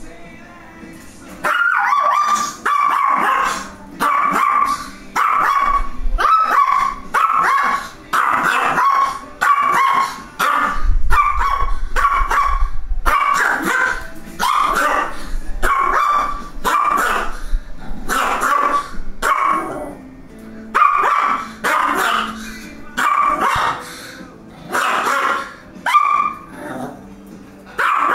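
A dog barking repeatedly, about one bark a second, starting about a second and a half in and going on with only brief pauses.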